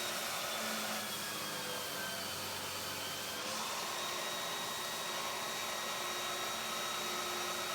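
Grinder running steadily as it grinds a curve into a knife's walnut handle scales: an even hiss with a faint high whine.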